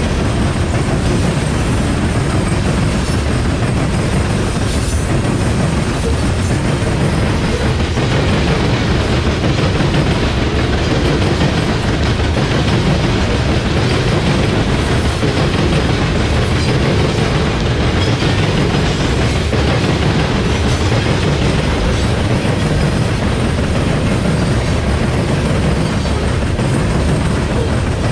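Loaded CSX coal hopper cars rolling past at close range: a steady, loud rumble and clatter of steel wheels on the rails.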